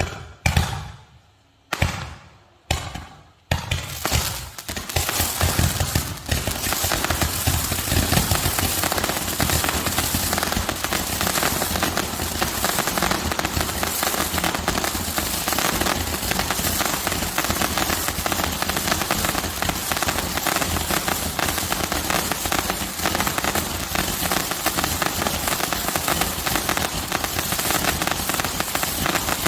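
Gatling-gun style 300-shot roman candle barrage firing: a few separate shots in the first three or four seconds, then a rapid unbroken stream of launches mixed with crackling.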